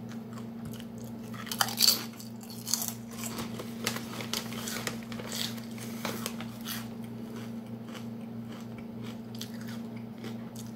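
Kettle-cooked potato chips being bitten and chewed: a few loud crunches about two seconds in, then a run of softer chewing crunches that thins out later. A steady low hum runs underneath.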